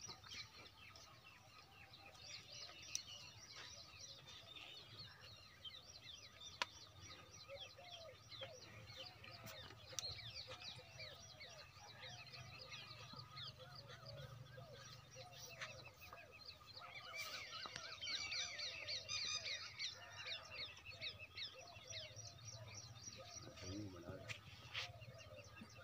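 Many small birds chirping and twittering nonstop, busiest about two-thirds of the way through, with a few sharp clicks.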